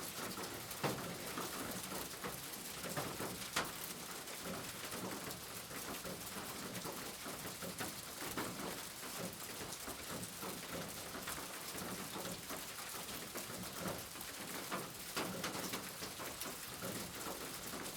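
Steady rain falling, an even hiss with scattered sharper drops striking a surface.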